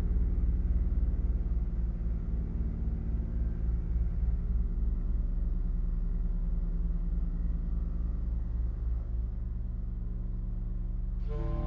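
Low drone of several held tones stacked together, with a fast flutter in the lowest notes. Near the end, higher tones come in on top.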